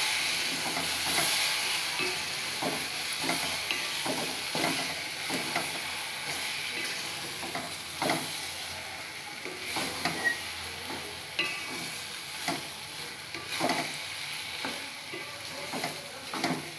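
Tomato rice being stirred with a spatula in a pot: repeated irregular scrapes of the spatula against the pot, over a steady sizzle of the hot tomato masala.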